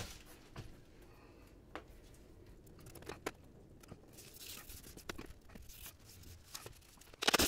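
Sheet of acrylic plastic being set against a door window frame and pressed onto double-sided tape: scattered light clicks and scrapes, then a quick cluster of louder clicks near the end.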